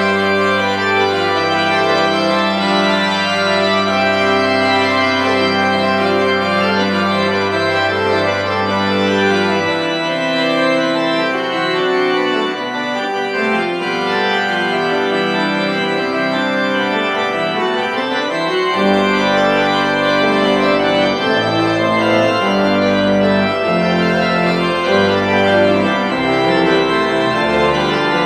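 Church pipe organ playing a many-voiced piece from a score. A low pedal note is held under the upper voices, drops out about a third of the way through, and the pedal bass comes back with moving notes past the halfway point.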